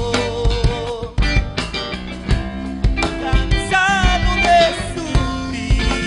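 Live rock band playing: drum kit, electric bass and electric guitars with a steady drum beat.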